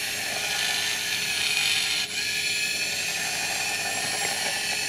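Appbot Link robot's small electric gear motors whining steadily as it rotates under phone control, with a brief break about two seconds in.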